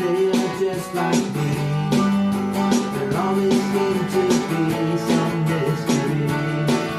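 Instrumental music led by guitar, with chords strummed in a steady rhythm.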